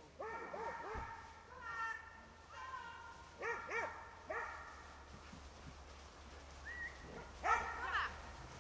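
Old English Sheepdogs barking in short bursts of quick barks, with a few longer drawn-out calls between them. The loudest burst comes near the end.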